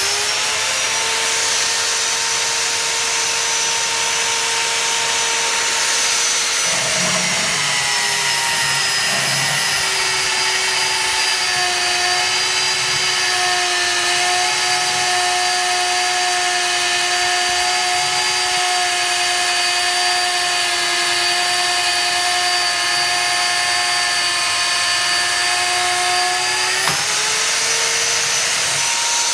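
Dongcheng DJC30 900 W magnetic drill running with a 30 mm carbide annular cutter in steel. The motor whines steadily at first, then drops in pitch about seven seconds in as the cutter bites and cuts under load. It rises again near the end as the load comes off at the end of the cut.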